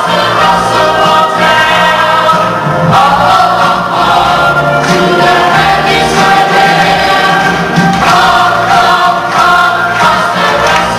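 Musical-theatre ensemble number: many voices singing together in chorus over loud instrumental accompaniment.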